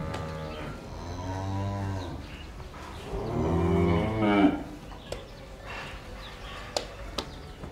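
Cattle mooing: two long moos, the second louder, each rising and then falling in pitch. A few sharp clicks follow in the second half.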